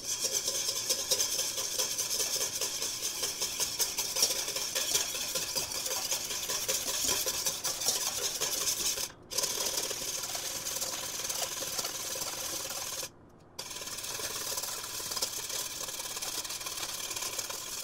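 A wire whisk beating egg yolk and olive oil in a stainless steel bowl to emulsify hand-made mayonnaise: a fast, steady scraping and clicking of the wires against the metal. It breaks off briefly twice.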